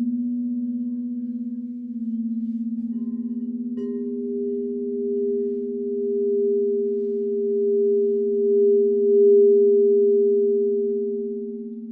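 Crystal singing bowls ringing in sustained, pure tones with a slow waver: a low bowl holds its note throughout, and a higher bowl comes in after a light tap about four seconds in, swelling louder past the middle before easing off.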